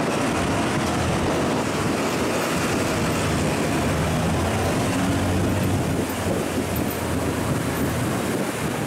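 A barge's diesel engine running steadily with a low drone, mixed with rushing water and wind noise.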